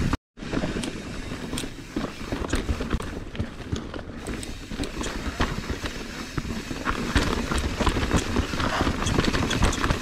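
Mountain bike descending a rocky dirt trail: tyres rolling and crunching over dirt and rock, with the chain and bike rattling in constant quick clicks and knocks over a low rumble. The sound drops out completely for a moment just after the start.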